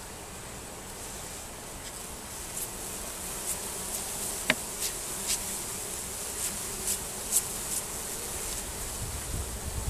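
Carniolan honey bees buzzing in a steady hum around an opened top bar hive, with scattered light ticks and one sharp click about halfway through. Wind starts rumbling on the microphone near the end.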